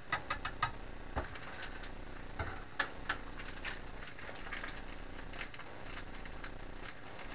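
Stick ramen noodles, cabbage and bean sprouts simmering in water in a frying pan on a gas stove: a steady hiss with scattered small pops and ticks, a quick run of clicks in the first second.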